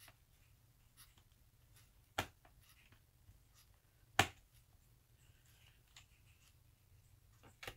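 A few sharp clicks, the loudest about four seconds in and others about two seconds in and near the end, from a screwdriver and screws as screws are driven back into the plastic bottom case of an HP Pavilion dv6 laptop.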